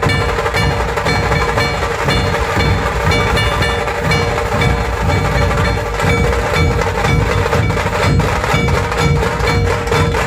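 Dhol-tasha troupe drumming: many large dhol drums and tasha drums beaten together in a loud, fast, continuous rhythm, with a sustained ringing tone over the strokes.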